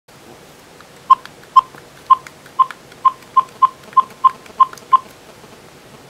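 Eleven short electronic key beeps, all at the same pitch, at an uneven pace of two to three a second: a phone's keypad tones as a number is keyed in.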